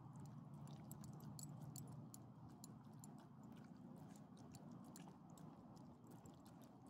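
Small dogs chewing and licking soft chicken from a hand: faint, quick, wet chewing clicks over a steady low hum.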